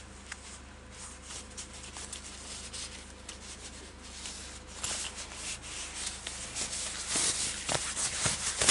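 Cardboard box flaps and packaging rubbing and rustling as they are handled. The scraping grows busier about halfway through and ends with a sharp knock.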